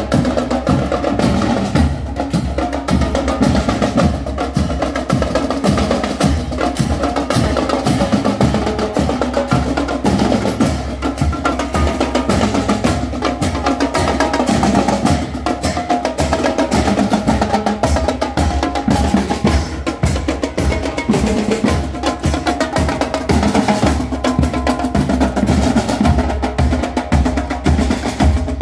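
A marching percussion band (fanfarra) of snare drums, bass drums and crash cymbals playing a steady marching beat.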